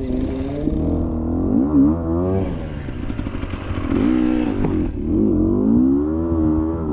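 Enduro dirt bike engine revving up and down in repeated throttle blips as the bike is worked over difficult ground.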